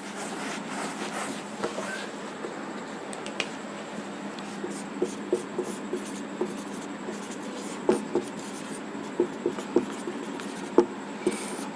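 Someone writing by hand: a run of light scratching strokes with small taps scattered between them.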